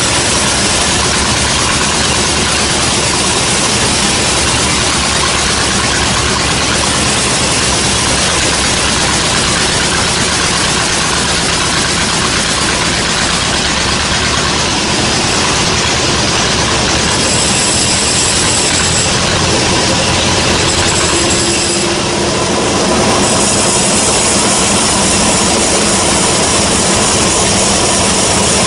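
Sawmill bandsaw machinery running steadily and loudly, as used to saw a gmelina log, with a faint high whine coming and going in the second half.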